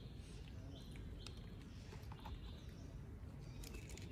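Faint outdoor ambience: a steady low rumble with a few brief, faint high chirps in the first second or so and a couple of light ticks.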